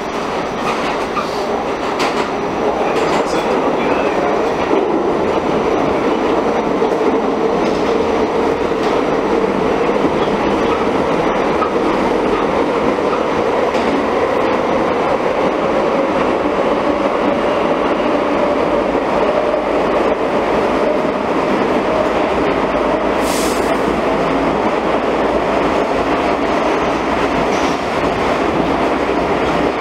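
Interior of an R46 subway car running at speed: a loud, steady rumble of wheels on rail with a whine that rises slowly in pitch. A brief high hiss comes about three-quarters of the way in.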